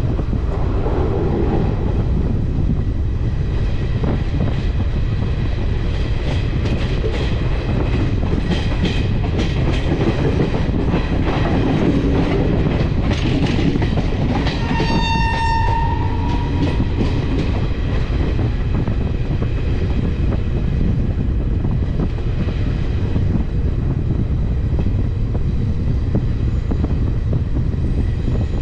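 Train running at speed: a steady wheel-and-track rumble with a stretch of quick clicking over rail joints in the middle, and one short train horn blast about halfway through.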